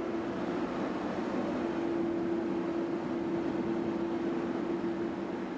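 Electric fan running steadily, a constant motor hum over rushing air.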